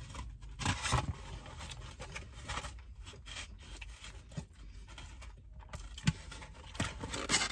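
Someone eating a barbecue pulled pork sandwich: irregular rustling, scraping and small clicks from handling the sandwich and biting and chewing, a little louder just after the start and again near the end.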